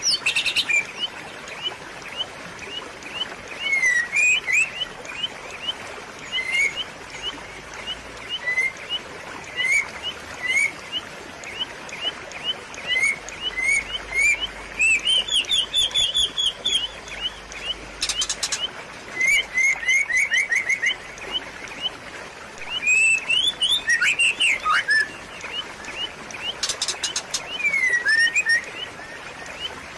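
Small birds chirping: short, quick notes repeated every half second or so, with a few brief trills, over a steady hiss of trickling water.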